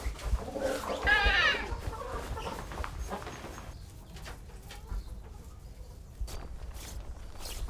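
A chicken squawking once, loudly, about a second in, followed by quieter scattered rustles and clicks.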